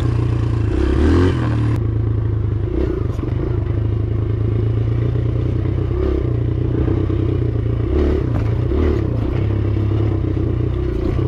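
Kawasaki KLX dirt bike's single-cylinder four-stroke engine running at modest revs over a rough trail, its engine speed rising and dropping. Occasional clattering knocks come from the bike riding over the bumps.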